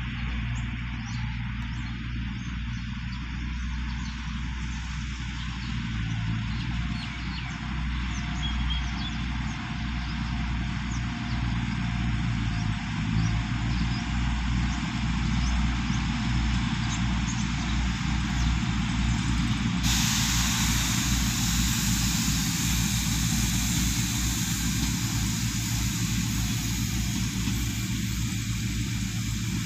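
Diesel passenger railcar set pulling out of a station: a steady low engine drone that grows louder as the train moves off. About two-thirds of the way in, a steady hiss starts suddenly and runs on under the drone.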